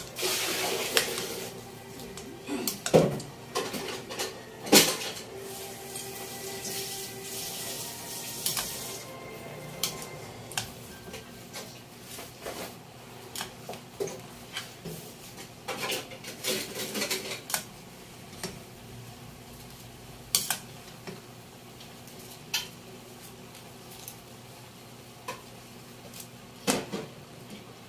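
Metal ladle stirring in a metal cooking pot, scraping and clinking against its sides in irregular sharp knocks. The loudest knocks come about 3 and 5 seconds in, and there is a busier run of clinks about two-thirds of the way through.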